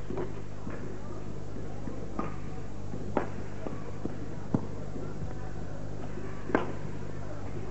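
Badminton rackets striking the shuttlecock in a rally: sharp, single hits a second or two apart, over a steady low hum and faint hall ambience.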